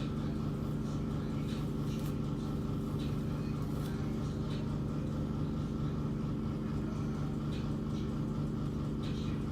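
Steady low mechanical hum with several held tones, constant in level, with faint brief ticks now and then.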